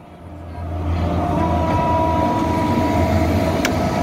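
Oncoming WAP-7 electric locomotive passing close alongside on the adjacent track: a low rumble with a steady whine, growing loud over the first second and then holding steady. One sharp click sounds near the end.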